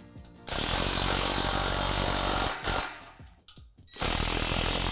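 Cordless drill driving bolts home into the playset's metal braces, running in two bursts of about two seconds each with a short pause between.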